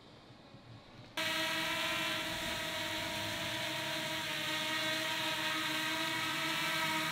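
Quadcopter drone hovering, its propellers giving a steady buzzing whine made of several pitches at once. It starts suddenly about a second in, after near-quiet.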